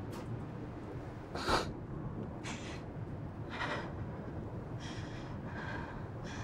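A person breathing in short, noisy breaths, about six of them, the loudest about a second and a half in, over a faint low background hum.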